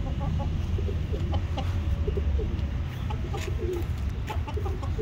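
Pigeons cooing, many short calls overlapping, over a steady low rumble.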